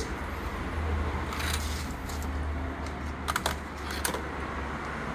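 A few light metallic clicks and small rattles, in short clusters about a second and a half, three and a half and four seconds in, over a steady low hum.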